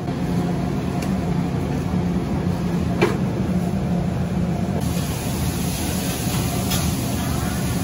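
Steady low hum of commercial kitchen machinery, with a sharp click about three seconds in and a lighter one about a second in.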